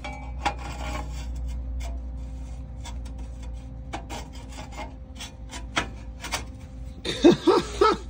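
Tack-welded steel exhaust Y-pipe rubbing and clicking against the cut ends of the exhaust pipes as it is slid into place by hand for a test fit, with scattered small metal clicks and a louder run of sounds near the end.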